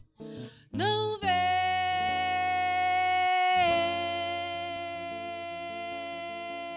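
End of a song: a woman sings one long held note, sliding up into it, over sustained chords from the band, fading toward the end.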